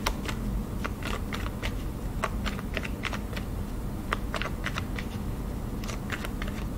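A deck of tarot cards being shuffled by hand: irregular light clicks and slaps of cards against each other, several a second.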